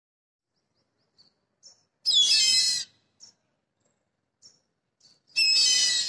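Kite calling: two high-pitched calls, each just under a second long, about two seconds in and again near the end, with a few faint short chirps between.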